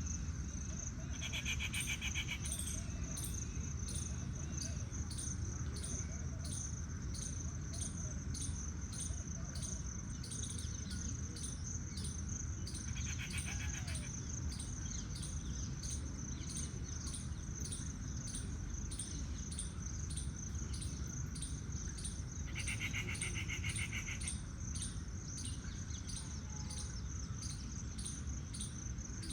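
Forest ambience of insects and birds: a steady high insect drone with a regular high chirp repeating about two to three times a second, and three short buzzy trills, near the start, midway and about two-thirds through.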